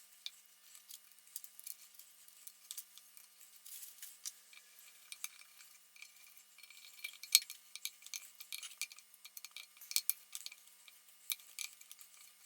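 Faint, irregular light metallic clicks and clinks of small hardware being handled as the screws of the Shopsmith jigsaw's oil seal holder are fitted, with the sharpest click about seven seconds in.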